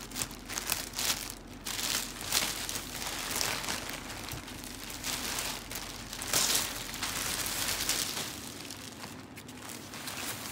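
Thin clear plastic bag and white wrapping paper crinkling and rustling as hands pull a tote bag out of its packaging, in irregular crackles with one louder rustle a little past the middle.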